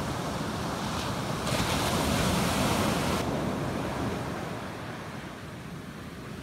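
Small sea waves breaking and washing up a sandy beach, a louder hissing surge of surf about one and a half to three seconds in that then eases off, with a low rumble of wind on the microphone.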